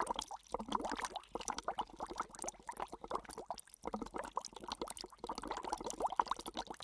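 Water splashing and gurgling in quick, irregular bursts.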